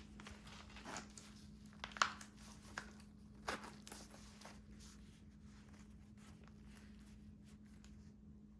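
Light handling sounds: a few sharp clicks and short rustles, the loudest about two seconds in, over a steady low hum.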